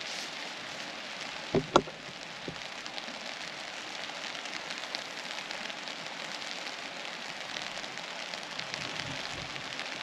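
Steady hiss and patter of water, with two sharp knocks close together about one and a half seconds in.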